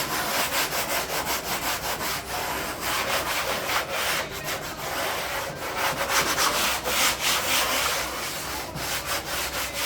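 Light sanding: sandpaper or a sanding sponge rubbed over the surface in quick, uneven back-and-forth strokes.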